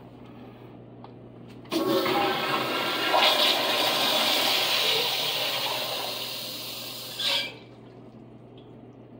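Kohler Kingston wall-hung toilet flushed by its exposed flushometer valve. A sudden loud rush of water starts about two seconds in and eases off over about five seconds, with a brief last surge just before it cuts off.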